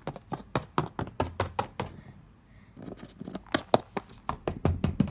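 Rapid, irregular taps of small plastic toy figures being hopped along a hard surface, several taps a second, with a short pause about two seconds in.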